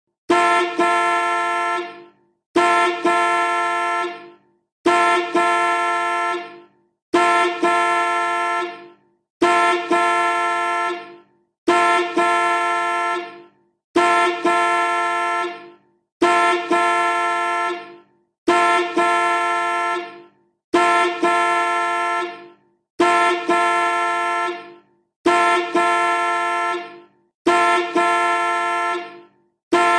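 Car horn sounding in a string of identical blasts of about two seconds each, one every two and a half seconds or so. Each blast stutters briefly just after it starts, then holds steady and fades out at the end.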